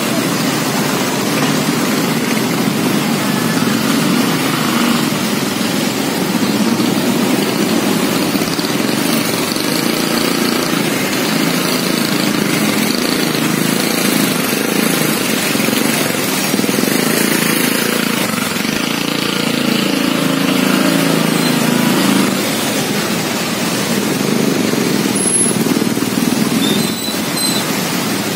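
Steady road traffic noise, with vehicle engines running and passing on the street close by.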